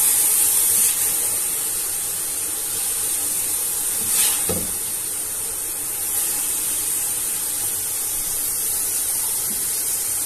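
Chopped cabbage, capsicum and carrot sizzling in hot oil in a large metal pot as they are stir-fried with a spatula: a steady hiss. About four and a half seconds in there is a short scrape or knock of the spatula against the pot.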